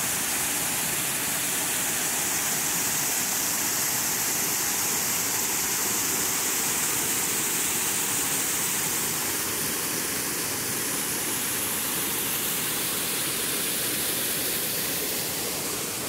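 Small waterfall pouring steadily into a shallow rocky pool, a constant hiss of falling water that eases slightly near the end.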